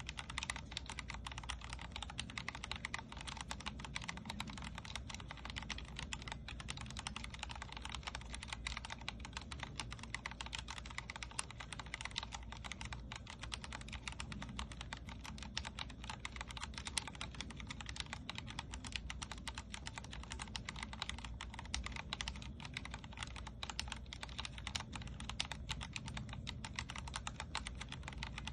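Vortex Core 40% mechanical keyboard with linear Cherry MX Speed Silver switches being typed on steadily and fast, many keystrokes a second with no pause.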